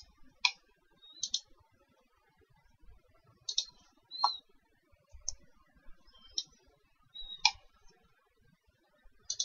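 Computer mouse clicking: about eight sharp, irregular clicks, a pair close together near the start, as menu buttons are pressed.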